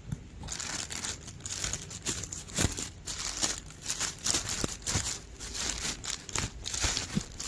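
Plastic packaging crinkling and rustling as it is handled and opened, with irregular sharp crackles.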